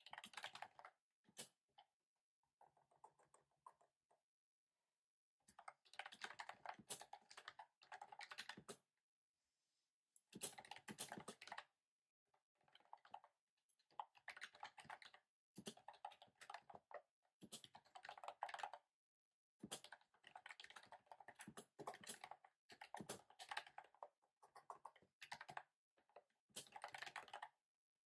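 Typing on a typewriter-style keyboard with round keycaps: quick runs of key clicks, each run a second or two long, broken by short pauses.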